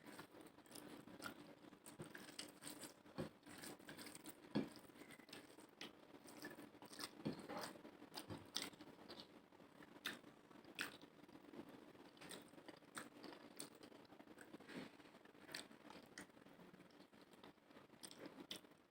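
A person eating curry with rice close to the microphone: faint, irregular chewing, lip smacks and small crunches, with a few louder clicks here and there.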